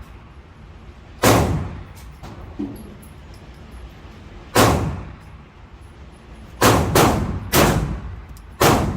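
Six pistol shots from a Glock 19 firing 9 mm rounds, each a sharp crack with an echoing tail, spaced unevenly: two a few seconds apart, then four in quicker succession near the end.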